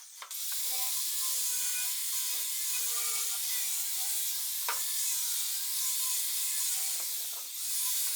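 Wooden chair leg being ground with a power tool: a steady abrasive hiss over a faint wavering motor whine, with one sharp click about halfway and a short easing-off near the end.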